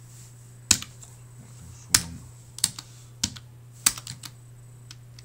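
Computer keyboard keys pressed one at a time: about six sharp, separate key presses with pauses between them, over a steady low hum.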